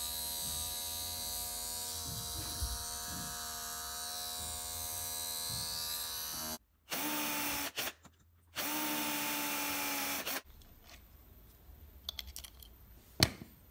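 Small brushed DC motor, salvaged from an old drill, running steadily with a whine as it spins neodymium magnets past a washing-machine drain-pump coil, driving it as a generator. The sound breaks off suddenly, then two shorter steady runs follow, and a few light handling clicks come near the end.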